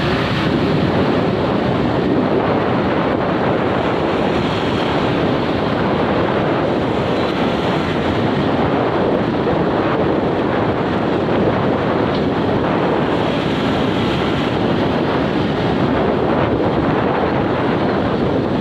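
Steady loud rush of wind on the microphone at the seaside, with surf washing under it.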